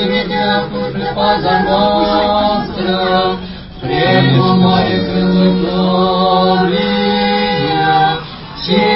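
Unaccompanied Eastern Orthodox liturgical chant from a small group of church singers, in long held phrases over a steady low note. The singing breaks briefly about three and a half seconds in and again near the end.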